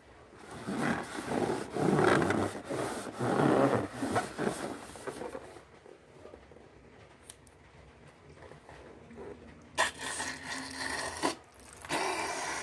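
Rubber balloon being rubbed and squeezed by hand, making irregular rubbing, squeaking noises in bursts; later a burst with a steadier squeal, then a short one near the end.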